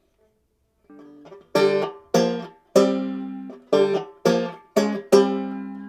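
Ibanez B200 banjo, its cracked neck glued and pinned with finishing nails, being strummed. After a quiet first second comes a soft chord, then a run of loud chords about half a second apart, a couple of them left ringing for a second or so.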